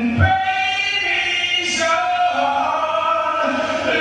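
A man singing solo into a microphone, slow and melodic, holding long notes and sliding between pitches.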